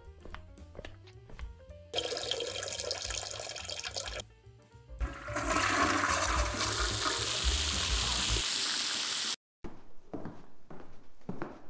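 Toilet flushing: a loud rush of water that starts about five seconds in, swells, and cuts off abruptly, after a shorter, quieter stretch of running water.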